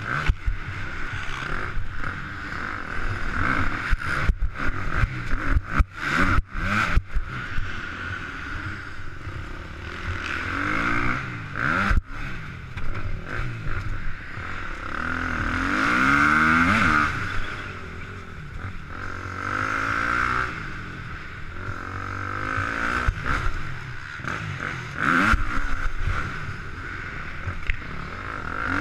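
KTM 250 SX-F four-stroke single-cylinder motocross engine being revved up and cut back again and again through a fast lap, heard from a helmet-mounted camera. A cluster of sharp knocks cuts in about four to seven seconds in, with single knocks later.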